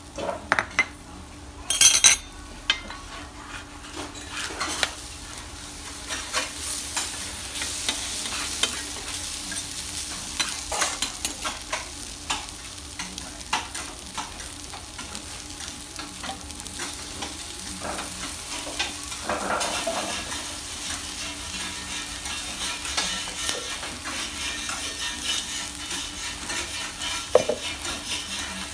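Yakisoba frying on a hot griddle with a steady sizzle, while metal spatulas scrape and tap against the iron. There is a loud metal clatter about two seconds in.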